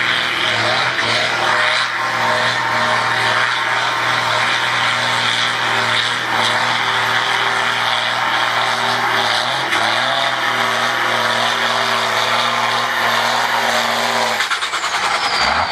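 Blue Ford farm tractor's diesel engine running flat out at steady revs, pulling a weight-transfer sled through mud, with a loud rushing hiss over the engine note. Near the end the throttle is cut, the engine note drops away and a high whistle falls in pitch.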